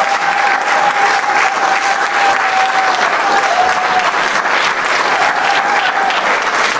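Audience applauding steadily, with a thin held tone over the clapping for the first four seconds or so and again briefly about five seconds in.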